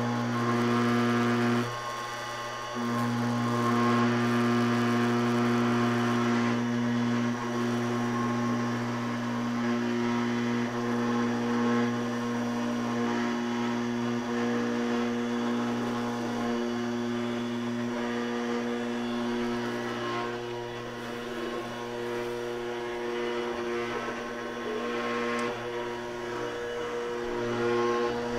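CNC router spindle running at a fixed 12,000 RPM while a 1/8-inch aluminium routing bit cuts sheet aluminium: a steady machine hum and whine with the hiss of the cut. It dips briefly about two seconds in.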